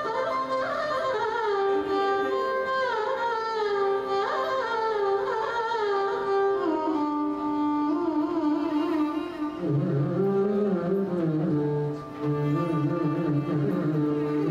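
Two Carnatic violins playing an ornamented melody, with pitch slides and oscillating notes. About ten seconds in, a lower line joins beneath the melody.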